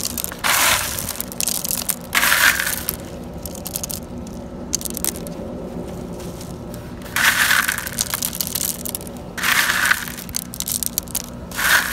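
Expanded clay pebbles crunching and rattling against each other as a hand pushes them in around a plant's net cup, in about five separate bursts.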